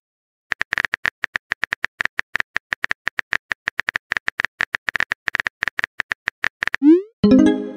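Phone keyboard typing sound effect: rapid, short clicks for about six seconds. Near the end, a short rising swoosh and a brief pitched blip, a message-send sound.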